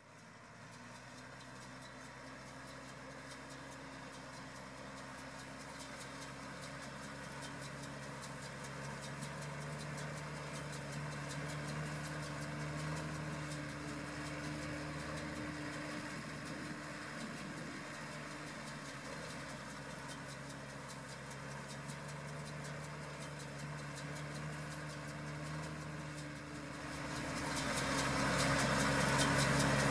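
Diesel tractor engine running steadily with a fine rapid clatter, fading in over the first seconds and getting louder near the end.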